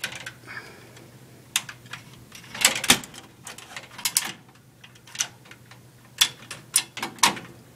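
Steel server rack rails and a server chassis being handled, giving irregular metal clicks and clacks, some in quick clusters, over a steady low hum.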